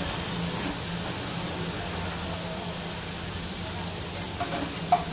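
Potato fries deep-frying in hot oil in a wok, a steady sizzle; the fries are crispy and nearly done. A short sharp sound stands out near the end.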